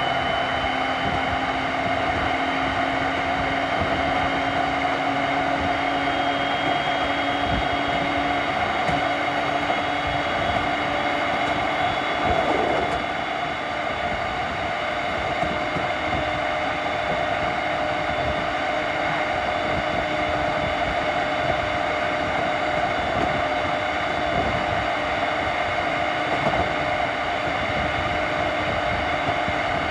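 JR East E231-series electric train running, with the steady rolling noise of wheels on rail and the tones of its Hitachi two-level IGBT VVVF inverter and traction motors. A low tone steps up slightly about seven seconds in.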